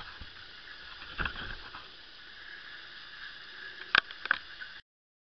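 Steady outdoor background hiss with a soft thump about a second in and two sharp clicks close together near the four-second mark. It cuts off suddenly into dead silence just before the end.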